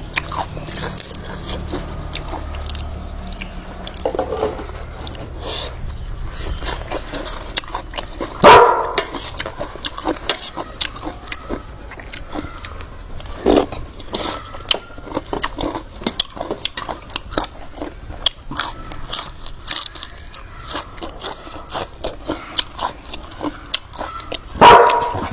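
A dog barking, a few single barks several seconds apart, the loudest about eight seconds in and another near the end. Between the barks there is a steady scatter of small sharp clicks and knocks.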